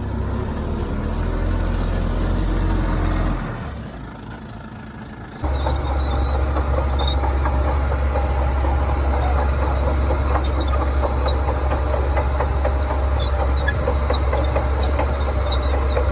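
Heavy earthmoving machine's diesel engine running. It fades briefly about three and a half seconds in, then comes back abruptly at about five seconds as a steady, louder deep drone with a rapid clatter over it.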